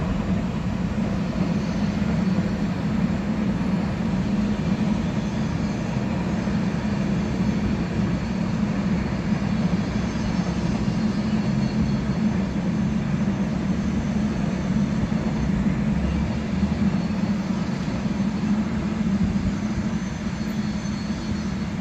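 Container freight train rolling steadily across a masonry arch viaduct: a continuous, even rumble of the wagons passing, with no horn or other distinct events.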